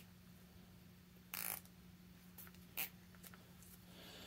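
Faint handling noises of a small plastic zip tie being threaded around a fuel line filter: a short rasp about a second and a half in and a sharp click near three seconds, with a few lighter ticks over a low steady hum.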